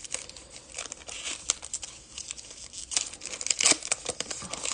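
Wrapper of a trading-card pack crinkling and tearing as it is ripped open by hand, in irregular crackles that are loudest about three and a half seconds in.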